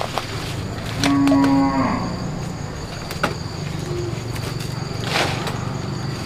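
A cow mooing once about a second in: a single flat call just under a second long. A few short knocks and rustles follow, over a steady high background drone.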